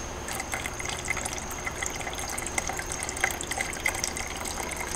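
Paint reducer poured from a metal quart can into a plastic paint-mixing cup: a thin stream of liquid with many small, irregular gurgles and drips.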